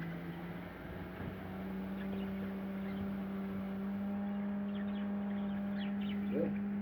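A steady low machine hum that steps up in pitch about a second and a half in, with faint budgie chirps over it.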